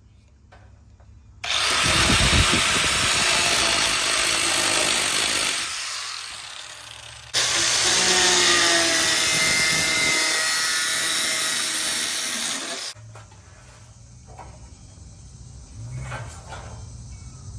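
Power cutting tool cutting through the truck's rusted sheet-metal body, run in two bursts of about four and five seconds, each starting suddenly and trailing off as the tool winds down.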